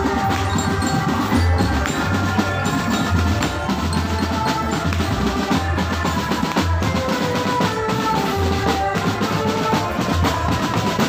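Marching drum band playing: snare and bass drums keep a steady beat under a tune played on marching glockenspiels struck with mallets.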